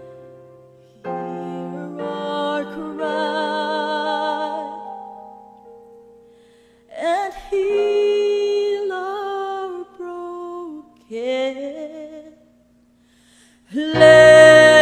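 A woman singing with vibrato over a soft backing track, in phrases broken by pauses. The music drops almost to silence about twelve seconds in, then a louder, fuller passage begins near the end.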